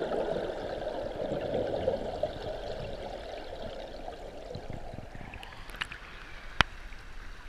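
Turbulent river water rushing, heard at and below the surface, slowly fading, with a single sharp click near the end.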